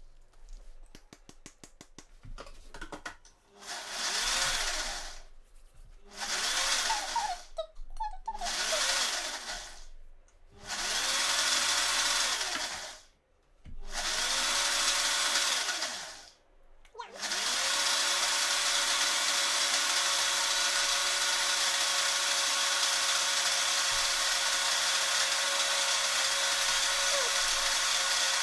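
NutriBullet blender blending a thick basil pesto: five short pulses of the motor, each with a rising whine as it spins up, then running steadily from a little past halfway. A few light clicks near the start as the blade base is twisted onto the cup.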